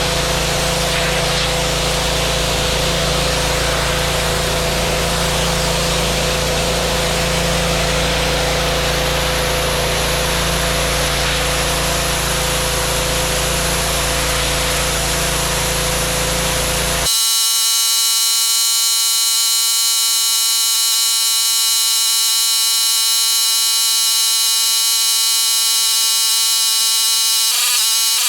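Stihl RB 400 pressure washer running and blasting a concrete sidewalk clean: a steady hiss of spray with a steady engine tone. About two-thirds of the way through it gives way abruptly to a steady, buzzing, alarm-like tone with many overtones.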